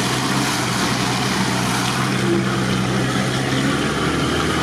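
Off-road 4x4's engine running steadily at low speed, heard from inside the cab while driving along a wet, muddy track.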